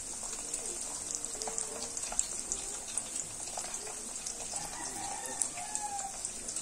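An egg and sliced Chinese sausage sizzling in hot oil in an aluminium wok: a steady hiss with frequent small crackles and pops.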